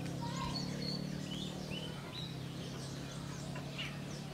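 Birds chirping outdoors, a scatter of short high calls, over a steady low hum.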